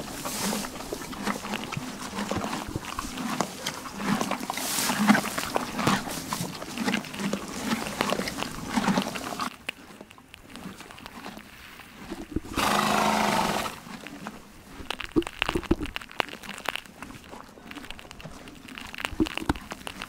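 A horse tearing at and chewing hay, a dense crackling rustle with a pulsing munch underneath. After about ten seconds it goes quieter, and a horse gives one loud snort lasting about a second, followed by scattered soft clicks.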